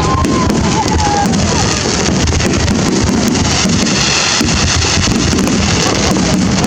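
A fireworks display crackling and banging densely and without pause. In the first second or so, whistling fireworks glide up and down in pitch.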